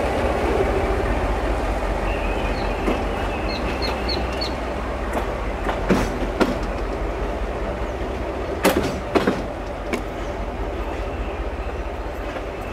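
Freight train rolling on the track, a steady rumble that slowly fades, with wheels knocking sharply over rail joints a few times in the middle, in pairs.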